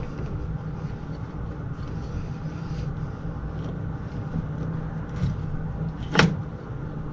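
A steady low machinery hum, with a single sharp knock about six seconds in, as the condensate line is being worked on and disconnected.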